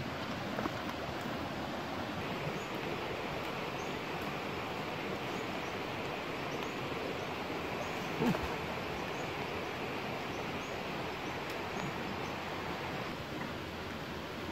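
Steady outdoor rushing noise with faint, short high chirps repeating through it. A light knock of a wooden stick against a tree stump comes just after the start, and a louder thump about eight seconds in.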